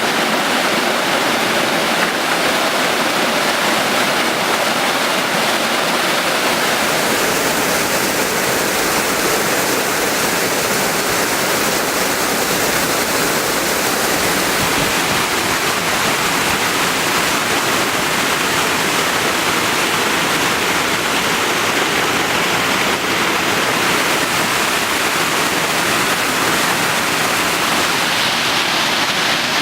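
Waterfall on a small river, its falling water making a loud, steady rush.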